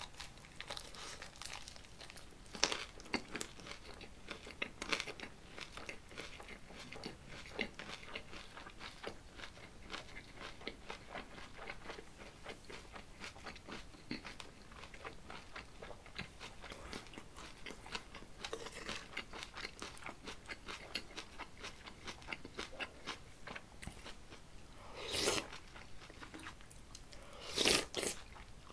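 Close-miked chewing of a mouthful of lettuce wrap with pork bulgogi: many quick crisp crunches of the lettuce leaves and wet mouth sounds. Near the end come two short, louder sounds as food is taken from the earthenware stew pot.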